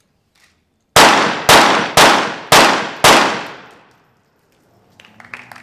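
A rapid-fire series of five .22 Short pistol shots, about half a second apart, each trailing off in a short echo. Clapping starts near the end.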